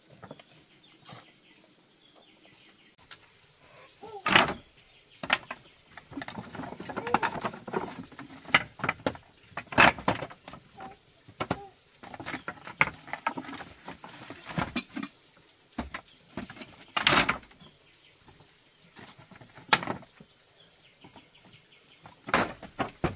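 Irregular knocks and clatter: a dozen or so sharp hits spread unevenly, with a busier run of rattling a few seconds in and quieter gaps between.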